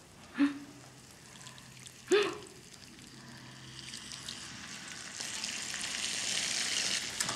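Tomato-based sauce poured from a small square pan into a hot frying pan of stir-fry, starting to sizzle about four seconds in and growing louder. Two brief vocal sounds come in the first couple of seconds.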